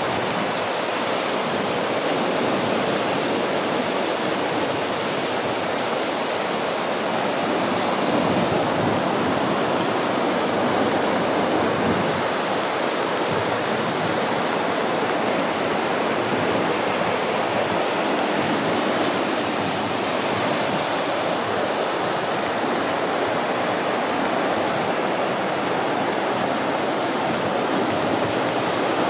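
Steady rushing wash of ocean surf, an even hiss with no single wave standing out.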